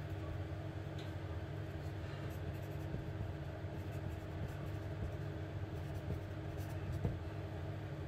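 Pen writing on paper: faint scratching strokes of handwriting, over a steady low hum in the background.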